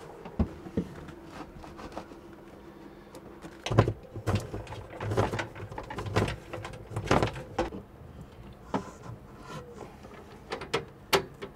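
Scattered knocks, clunks and scrapes of an inverter and its heavy cables being handled and fitted into a plywood cabinet. The loudest knock comes about four seconds in, followed by a cluster of clunks.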